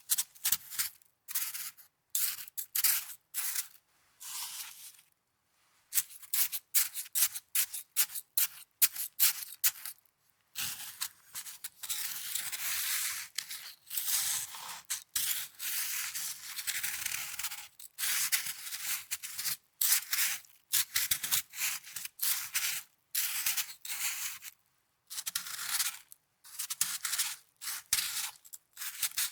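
Snow handled close to the microphone: short, crisp rubbing and crunching bursts that come in quick clusters, running almost without a break for several seconds in the middle.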